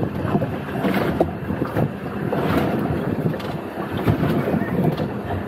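Wind buffeting the microphone over water lapping against a small boat's hull, with a few faint light knocks.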